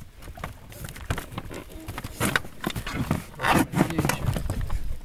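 Handling noise in an inflatable boat as a caught chub is set down to be measured: irregular knocks, thumps and rustles, loudest about two seconds and three and a half seconds in.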